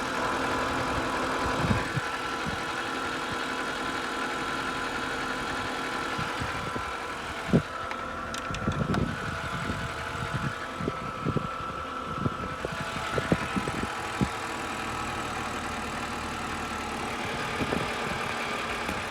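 BMW N52 straight-six idling with a steady high-pitched whine, which the owner places at the oil filter housing. Irregular low thumps come through the middle stretch.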